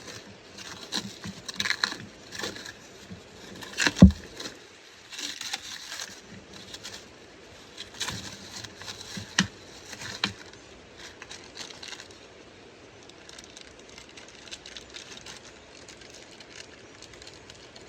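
Hand work on parts: scattered clicks, small metallic rattles and crinkling, typical of unwrapping and handling new poly pickup bands and their bolts, with one sharp knock about four seconds in. The handling grows quieter after about ten seconds.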